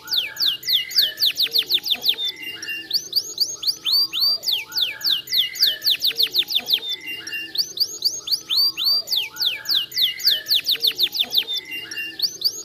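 Domestic canary singing: fast trills of sharply falling notes, broken by short flat chirps, in phrases that come round again every few seconds.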